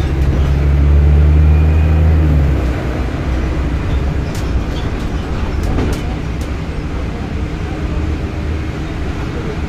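Scania bus's diesel engine running with a heavy low drone that eases off about two and a half seconds in, then carries on more quietly, with a few sharp rattles or clicks near the middle.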